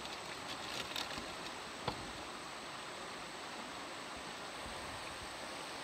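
Steady rush of a shallow creek's water running over rocks, with a few faint clicks early on and one short sharp tick about two seconds in.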